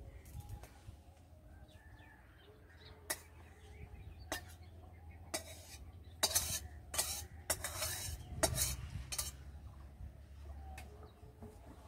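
Metal spatula scraping and clinking against a steel karai as cooked curry is scooped out into a bowl. Scattered strokes come early on, then a burst of louder scrapes from about six to nine seconds in.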